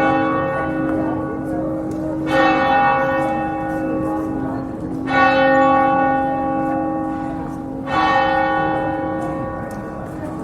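Church bell tolling in slow, evenly spaced strokes about three seconds apart, each stroke ringing on until the next is struck.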